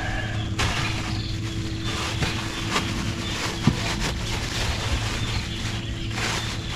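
A steady low mechanical hum runs throughout, with a few sharp clicks and knocks from handling gear on the boat, the loudest one a little past the middle.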